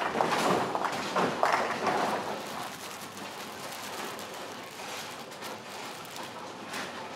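Bowling pins crashing and clattering as balls hit them on the lanes, with a sudden start and the clatter dying down after about two seconds into the steady background noise of the bowling alley.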